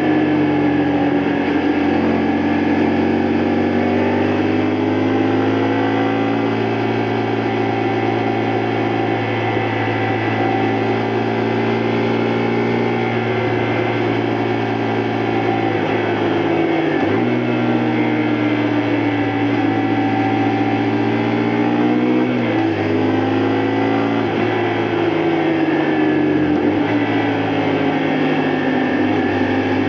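2002 Honda Varadero 125's small V-twin four-stroke engine running under way, its revs rising and falling, with a few sudden drops in pitch.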